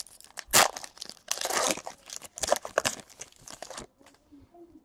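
Foil wrapper of a Panini Chronicles baseball card pack being torn open and crinkled by hand: a run of rips and crackles that stops about four seconds in.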